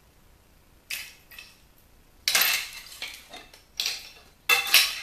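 Small steel scrap parts clattering and rattling in a series of short bursts. The loudest bursts come about two and a quarter seconds in and near the end.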